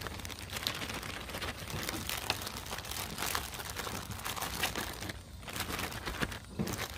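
Plastic zip-top bag crinkling and crackling as hands knead and shake raw chicken pieces coated in red Kool-Aid powder inside it, with two brief pauses near the end.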